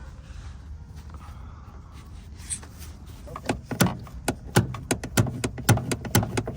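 A steady low hum, then from about halfway an irregular run of sharp metallic-sounding clicks or taps, roughly three or four a second, in a car workshop setting.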